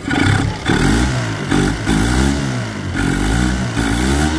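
2000 Mercury (Yamaha-built) 25 hp BigFoot four-stroke outboard, a two-cylinder, revved up and down several times by hand at the carburettor throttle linkage, its pitch rising and falling with each blip. It picks up cleanly with no hesitation, a sign that it now runs properly.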